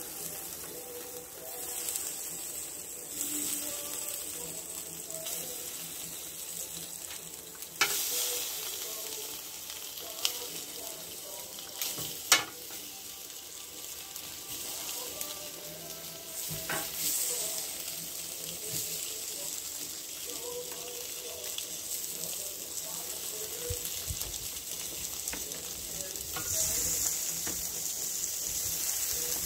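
Sausages sizzling on a hot barbecue grill as more are laid down, a steady crackling hiss. A few sharp clicks of metal tongs against the grill come in the first half.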